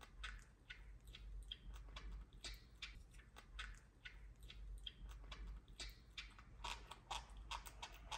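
Faint, quick wet clicks and smacks of a baby monkey chewing noodles, several a second and most frequent near the end.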